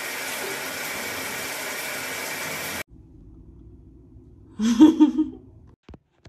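Shower water spraying steadily from a showerhead, cutting off suddenly about three seconds in. After a short pause comes a brief burst of a woman's voice, a short hum or laugh, then a few faint clicks.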